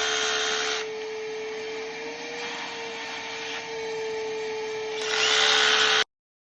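A 12-volt cordless rotary hammer drilling into concrete: a steady motor whine over gritty drilling noise. It drops quieter about a second in, grows louder again near the end, then stops suddenly.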